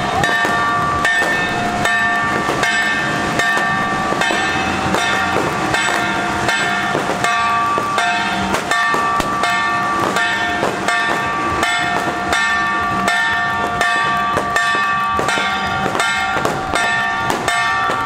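Strings of firecrackers crackling and popping, several sharp bangs a second, with sustained high tones moving between a few pitches over them.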